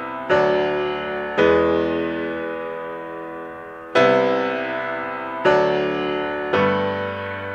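Background music: slow keyboard chords, each struck and left to fade, five new chords in all.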